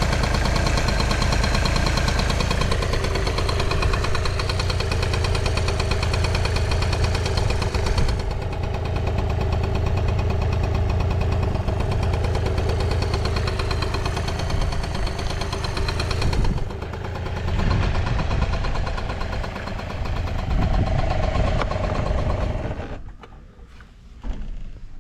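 Honda Super Dio BAJA (AF28) scooter's 50cc two-stroke single-cylinder engine running steadily, with the seller describing it as free of unusual noises. The sound stops abruptly about two seconds before the end, leaving only a few faint knocks.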